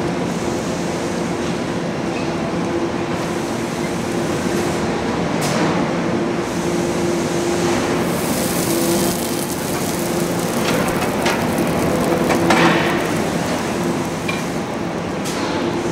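Steady mechanical rumble with a constant low hum, broken by a few sharp knocks.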